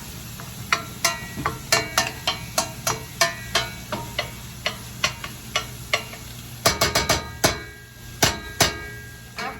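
Onions frying in olive oil in a pan while a utensil stirs them, knocking against the pan about three times a second, each knock with a short metallic ring. There is a quick flurry of knocks about seven seconds in.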